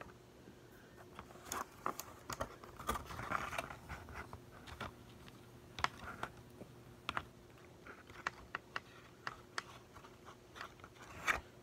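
Hands handling small soft plastic fishing lures and their packaging: scattered light clicks, taps and rustles, with a short spell of rustling about three seconds in.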